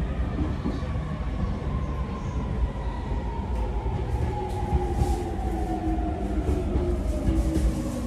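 E231-800 series electric commuter train's VVVF inverter and traction motors whining, several tones falling steadily in pitch as the train brakes into the station, over a continuous rumble of wheels on rail heard from inside the passenger car.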